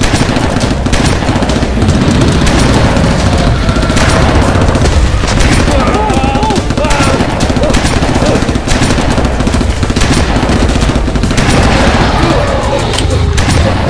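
Rapid automatic gunfire in a long, dense volley, action-film sound effects mixed over a music score.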